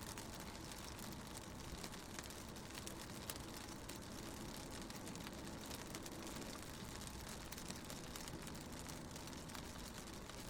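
Rain pattering on a car window, heard from inside the car, with many small drop ticks over a steady hiss. A low rumble of the car driving runs underneath.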